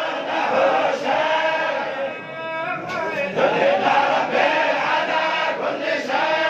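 Many men's voices chanting Quran recitation together in unison, a dense group chant. It dips briefly about two seconds in, when one voice stands out, then swells again.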